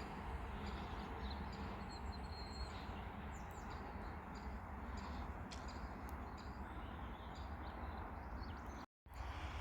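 Small birds chirping over a steady low rumble and hiss, with a brief total dropout near the end.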